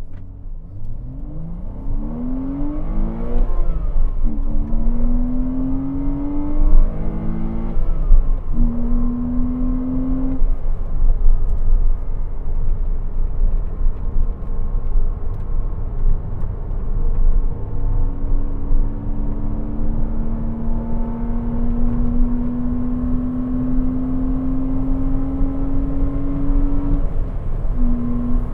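Porsche Cayman 987's 2.7-litre flat-six engine, its misfire fixed, revving up through the gears with several quick climbs and shifts in the first ten seconds. It then pulls more gently in one long, slow rise, with a shift just before the end, over steady road and wind rumble.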